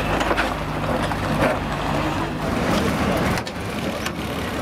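Recovery truck's engine running steadily as it tows a wrecked banger past on its lift. The engine sound breaks off abruptly a little over three seconds in.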